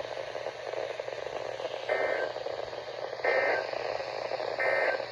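Three short warbling data bursts of the Emergency Alert System end-of-message code, about a second apart, over the steady hiss of a weather radio receiver. They mark the end of the severe thunderstorm warning broadcast.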